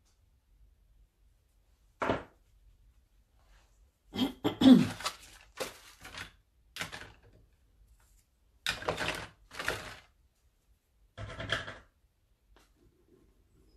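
A series of short knocks, thunks and rustles, about seven separate bumps of objects being handled, with the loudest cluster, which includes a brief falling scrape, about four to five seconds in.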